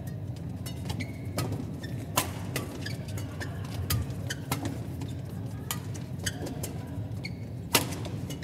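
Badminton rally: rackets striking the shuttlecock in a fast exchange of about a dozen sharp hits at uneven intervals, the loudest one near the end, with a few brief shoe squeaks on the court over a steady arena hum.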